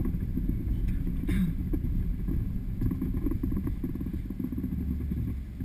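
Jeep Wrangler JK's V6 engine running at low trail speed over rough dirt, with a dense, irregular rattling and knocking from the body and suspension over the bumps. The sound is muffled, as picked up by a dash-mounted camera.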